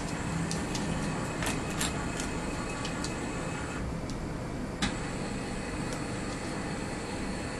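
Z Corporation ZPrint 350 powder-bed 3D printer running as a print job starts, with a steady mechanical whir and scattered sharp clicks, the loudest click about five seconds in.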